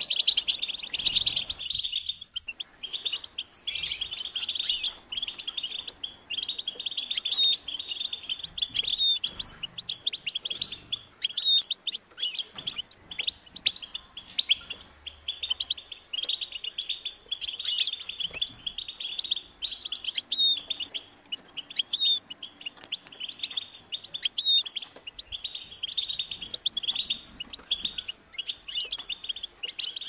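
European goldfinch singing: a continuous, fast twittering song of quick chirps and rising and falling trills.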